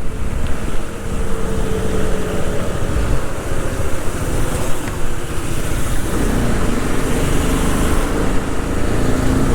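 Motorcycle riding along with its engine running under loud wind rush and road noise on the rider's camera microphone; the engine note shifts slightly a little past halfway.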